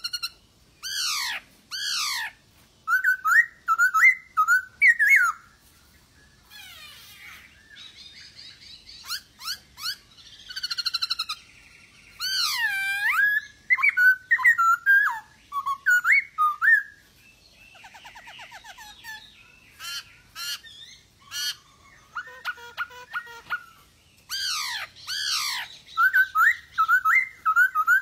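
Black-throated laughingthrush (poksay hongkong) singing a long, varied song: loud slurred whistles sweeping down in pitch, quick chattering runs and a few harsh buzzy notes, in phrases broken by short pauses.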